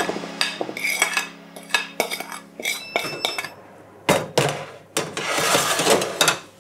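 Metal spoon scraping and clinking against a ceramic bowl as pumpkin pieces are tipped onto a metal baking tray, then the tray clanks against the oven rack about four seconds in and scrapes as it is slid into the oven.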